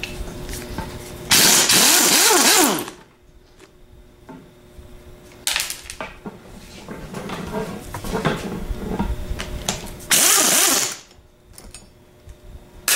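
A power driver spins out the E8 star-head bolts holding the motor strap on a 42MT starter solenoid, in two loud bursts of about a second and a half and about one second, each with a sweeping motor whine. A shorter burst and clinks of loosened metal parts come in between.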